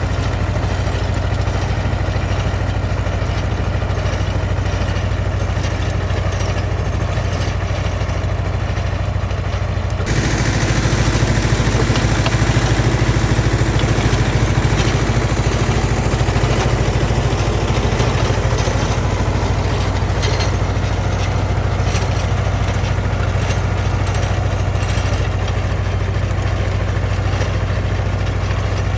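T-25 tractor's two-cylinder air-cooled diesel running steadily, driving a rotary tiller through the soil. About ten seconds in the sound abruptly gets louder and brighter.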